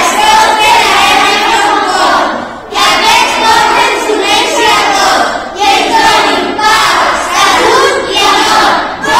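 A group of children's voices together in unison, loud and in several phrases broken by short pauses.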